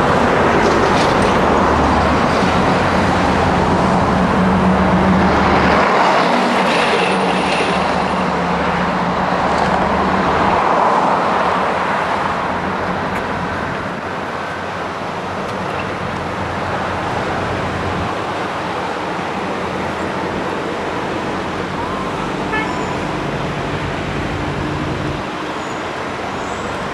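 Street traffic: cars passing, with a low engine hum. It is louder for about the first ten seconds, then settles to a steadier, lower rumble.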